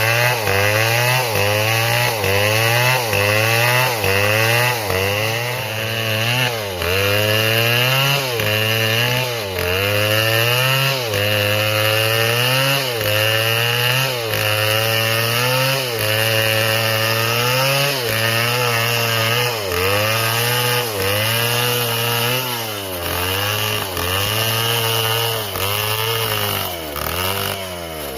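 Stihl MS 720 chainsaw cutting through a tree trunk at high revs, its engine pitch dipping and recovering about once a second as the chain bogs in the wood and picks up again.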